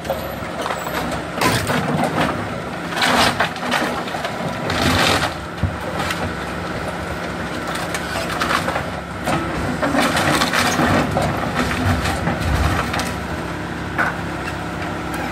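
Backhoe engine running steadily while it demolishes a wooden house, with repeated bursts of timber breaking and being crushed.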